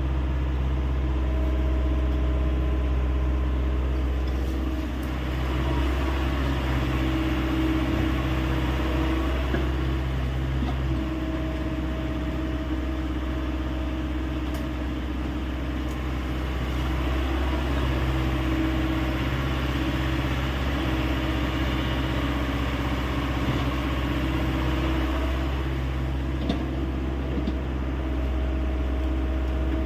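Hyundai 85A excavator's diesel engine running steadily while the machine works, its note shifting every several seconds.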